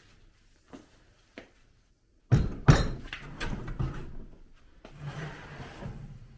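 A few faint clicks, then a burst of clattering knocks lasting about two seconds, followed by softer rummaging and scraping: tools or parts being handled on a workbench.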